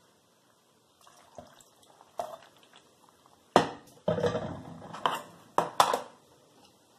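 Kitchenware knocking and clinking as bean broth is poured into a blender jar. After a few light clicks comes a sharp clack about three and a half seconds in, then a second or so of pouring and scraping, then two more clacks near the end.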